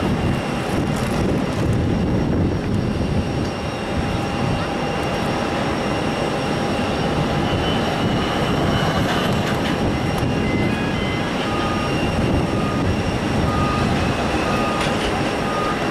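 Boeing 767-300ER's twin jet engines on final approach as the airliner descends to the runway: a loud, steady rumbling roar with a thin high whine over it. A few short high tones come in during the second half.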